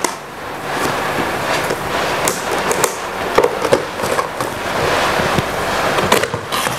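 A small cardboard toy box being opened by hand: the flap pulled and the packaging scraping, rustling and clicking in many small bursts.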